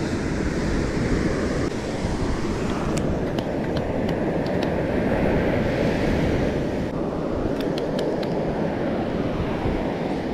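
Surf washing up the beach with wind buffeting the microphone, a steady rushing noise. Two short clusters of faint light clicks, one a few seconds in and another near the end.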